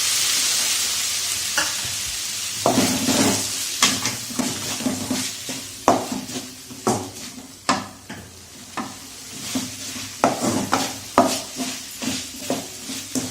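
Lamb intestine fry sizzling in a kadai as the water cooks off, the sizzle dying down, then a spoon scraping and knocking against the pan again and again as the dry masala is stirred.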